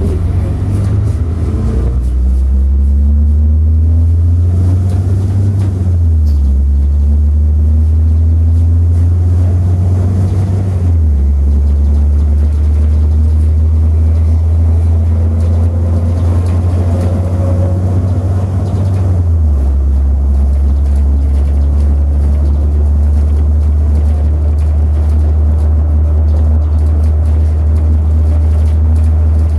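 City bus engine and road noise heard from inside the moving bus: a loud low drone that shifts in pitch three times, about six, eleven and nineteen seconds in, with a fainter rising whine in the first few seconds.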